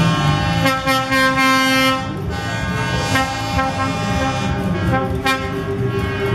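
A lorry's air horn sounding several long blasts at different pitches.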